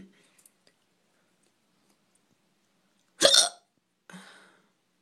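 A person's single loud, sharp hiccup about three seconds in, followed by a fainter short sound half a second later. The hiccups are deep and loud, which the person puts down to being drunk.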